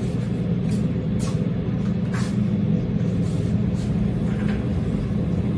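A steady low machine hum, with a few faint taps.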